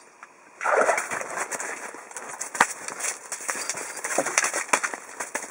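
A freshly landed northern pike flopping and thrashing on the snowy ice, giving an irregular run of sharp slaps and knocks, with a louder rush of noise about a second in.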